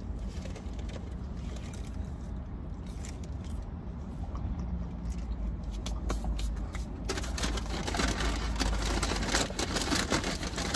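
Close-up eating sounds: chewing, with crackly rustling of food packaging that gets busier about seven seconds in, over a steady low rumble.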